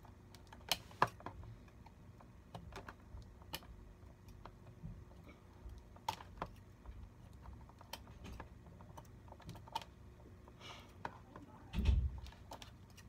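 Scissors snipping at a cardboard package, giving scattered sharp clicks along with rustling of the packaging. A dull thump near the end is the loudest sound.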